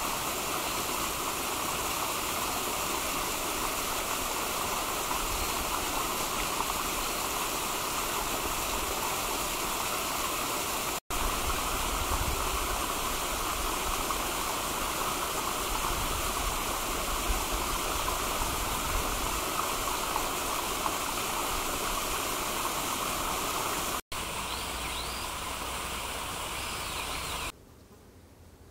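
Steady rushing of flowing stream water. It breaks off for an instant twice and drops much quieter near the end.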